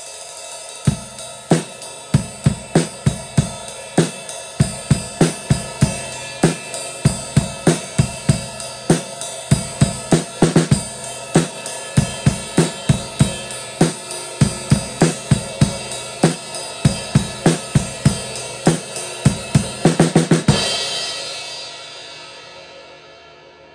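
Drum kit played in a steady beat, with kick drum and snare under the bright wash of a Zildjian Avedis 18-inch medium crash cymbal. The playing stops about twenty seconds in, and the crash rings on and fades away.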